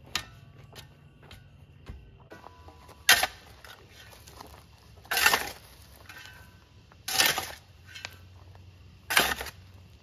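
Steel shovel scraping into gravelly soil and throwing it into a post hole to backfill around a wooden pole. Five gritty scrape-and-toss sounds about every two seconds, the one about three seconds in short and sharp, the later ones longer.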